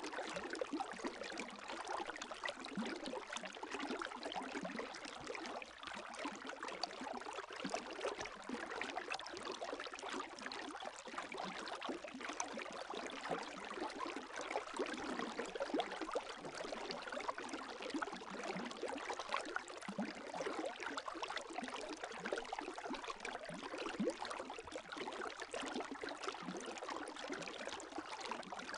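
Gentle lake waves: a steady wash of water with many small splashes and trickles.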